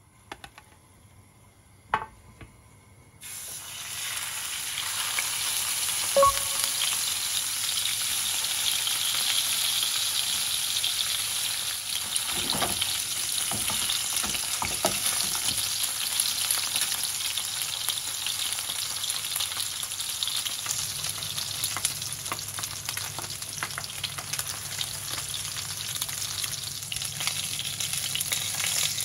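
A red sea bream fillet going skin-side down into hot oil in a frying pan: after a couple of light clicks, the oil starts sizzling suddenly about three seconds in and keeps up a loud, steady sizzle. A sharp clink sounds a few seconds later, with a few soft knocks as the fillet is held down.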